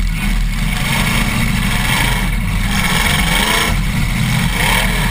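Demolition derby car's engine running, heard from inside the stripped-out cabin: a loud, steady low drone.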